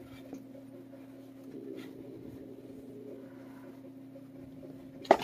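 Steady low hum with faint rustling of a gloved hand stroking a cat's fur, then a sudden loud knock near the end.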